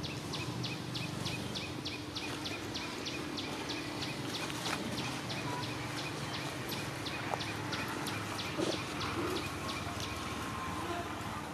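Forest ambience: a rapid series of short, high chirps from a small wild animal, about four a second at first, slowing to about three a second and stopping about eight seconds in, over a steady low background hum.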